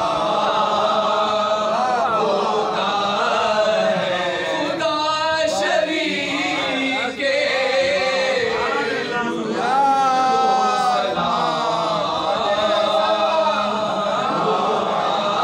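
Group of men chanting a salam together in soz khwani style, unaccompanied, one voice leading at the microphone with the others singing along.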